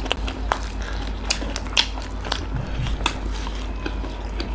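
Close-up eating sounds: irregular wet smacks and crunchy clicks of chewing spicy curry, rice and fried chicken, over a low steady hum.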